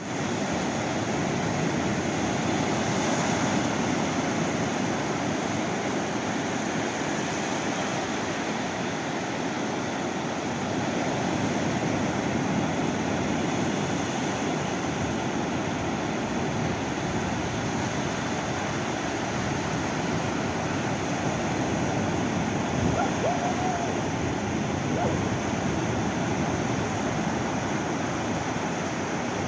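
Ocean waves and surf making a continuous, fairly even wash with gentle swells in level. Near the end come a few faint, short, high calls.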